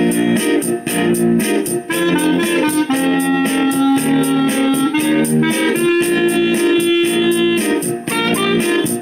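Clarinet playing a melody over a blues backing track with guitar and a steady drum beat, holding two long notes in the middle.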